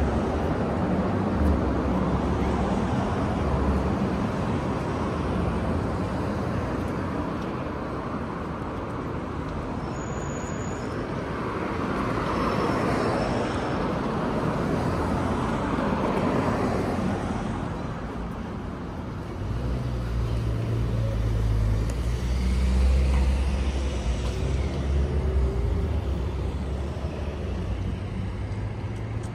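City street traffic: cars driving past in a steady wash of tyre and engine noise, swelling as vehicles pass. About two-thirds of the way through, a deep engine rumble from a heavy vehicle comes in and stays to the end.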